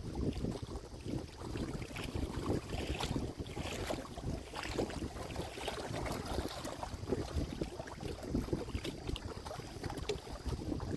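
Wind buffeting the microphone: an uneven low rumble with scattered faint clicks.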